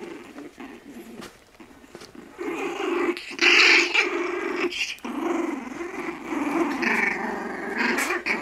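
Four-week-old puppies play-growling as they wrestle. It is quiet at first, then about two and a half seconds in comes a run of small, steady growls, loudest and shrillest about a second later.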